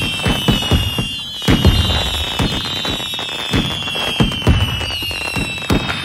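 Fireworks going off: a dense string of irregular bangs and crackling pops, several a second, over a high whistle that slowly falls in pitch and starts again higher about a second in and near the end.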